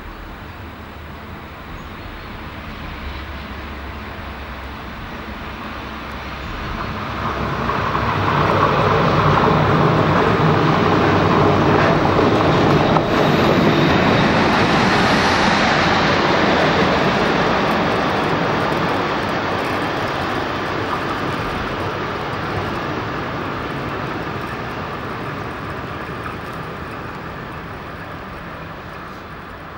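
A train passing on the line, its noise building over a few seconds, staying loud for about ten seconds, then slowly fading away.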